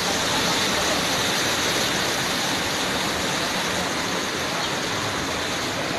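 Fast-flowing floodwater of a swollen river rushing in a steady, unbroken noise.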